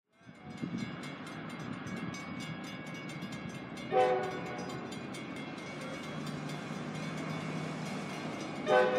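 Diesel freight locomotives running with a steady low rumble, and the lead locomotive's air horn sounding a short chord blast about four seconds in and starting another near the end.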